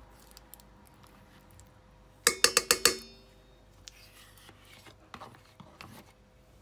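A metal utensil rapped quickly against the stainless-steel stand-mixer bowl while butter is added: a ringing run of about seven clinks, under a second long, about two seconds in, with faint handling noises around it.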